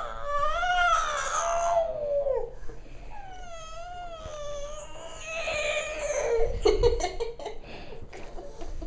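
High, wavering vocal squeals and warbles: several long calls that wobble up and down in pitch, the first gliding down at its end, followed by choppier, broken sounds about two-thirds of the way through.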